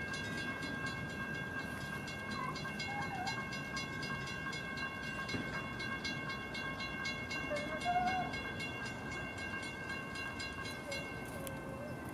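Railroad crossing warning bell ringing steadily at a grade crossing up the line, a continuous rapid ringing. A few short bird chirps sound over it.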